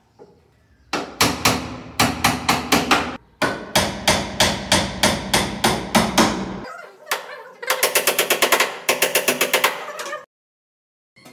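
Claw hammer nailing a red board onto a pine cabinet frame: sharp, even blows about three a second, then a quicker run of taps about six a second from around the middle, stopping suddenly near the end.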